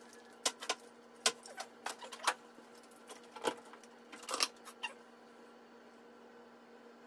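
Light clicks and taps of a corded hair-styling tool and its cord being handled, about a dozen in the first four and a half seconds, over a steady low electrical hum that is left alone near the end.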